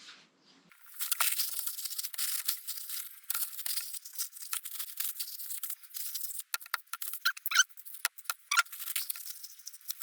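Blade scraping old gasket material off a metal engine surface: a busy run of scratchy strokes, clicks and short squeaks, starting a moment in.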